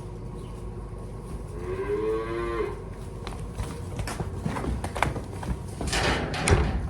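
A dairy heifer calf bawls once, a short call about two seconds in, followed by scattered knocks and clatter over a steady low hum.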